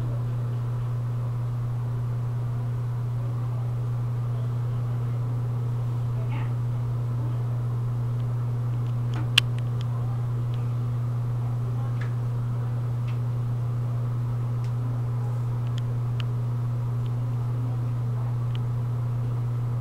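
Steady low hum at an even level, with a few faint clicks and one sharp click about nine seconds in.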